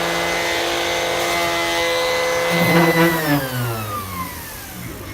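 An 18-volt cordless orbital sander runs at full speed with a steady motor whine. About two and a half seconds in it grabs the wood with a rougher, louder burst, then it is switched off and spins down with a falling whine. This is the aggressive sander, which tends to gouge the wood when set down while running.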